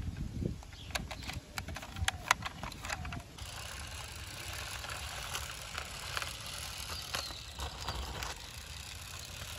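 Sharp clicks and knocks from a toy bus being handled for the first three seconds or so, then a steady background hiss.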